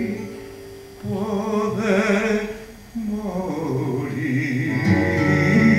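Tango accompaniment playing an instrumental interlude between sung verses: held notes with a wide vibrato, fading in the first second, new phrases starting about a second in and again near three seconds, fuller toward the end.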